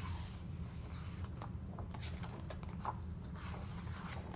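Paper rustling as a book's pages are handled and turned by hand, a few soft scattered ticks and swishes over a steady low hum.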